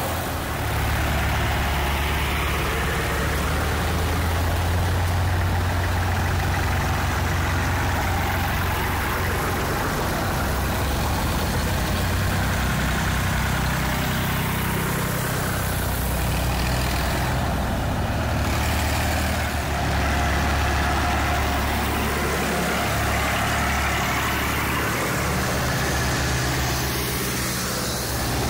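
Vintage farm tractors passing one after another, their engines running with a steady low note.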